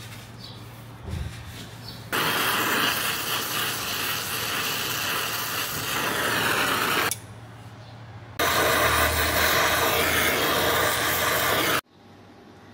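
Brazing torch flame hissing steadily as a copper refrigerant line is brazed. It comes in two stretches, about five and about three seconds long, and each one starts and stops abruptly.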